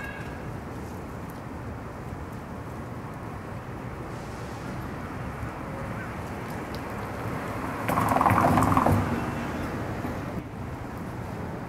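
Street ambience with a steady background hum; a car drives past, swelling to its loudest about eight seconds in and then fading.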